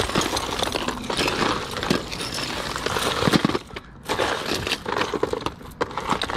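A heap of costume jewelry (metal chains, bangles and pearl strands) clinking and jangling as hands rummage through it in a plastic storage drawer, with a brief lull a little past halfway.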